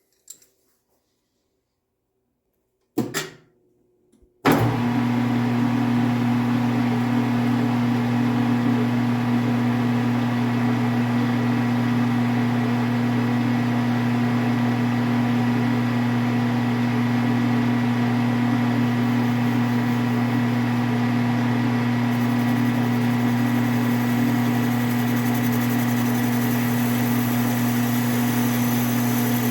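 A knock, then the GH-1440W geared-head lathe starting up abruptly about four and a half seconds in and running steadily with a strong hum.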